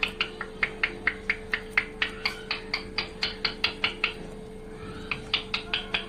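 Rose-ringed parakeet making a rapid series of short, sharp sounds, about four to five a second, pausing about four seconds in and then starting again.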